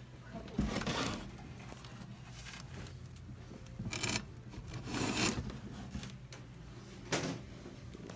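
Rustling and scraping of cardboard boxes and ceiling fan parts being pushed aside by hand, in several short bursts, over a steady low hum.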